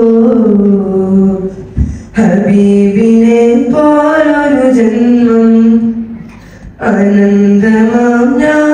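A teenage boy singing a Malayalam madh (Islamic praise) song unaccompanied into a microphone, in long, gliding held notes. He breaks off briefly twice, about two seconds in and again about two-thirds of the way through.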